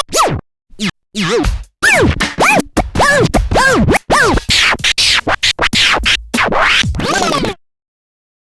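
DJ scratching on a vinyl record: a fast run of back-and-forth scratches, each a short pitch sweep that rises and falls, with a brief pause about a second in. It stops abruptly about seven and a half seconds in.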